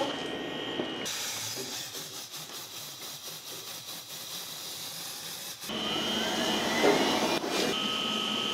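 Steady airy hiss with a thin high whine from a DPF burn-out rig heating and blowing through a soot-clogged diesel particulate filter from a BMW X3 20d. The hiss is quieter for a few seconds in the middle and grows louder again after about six seconds.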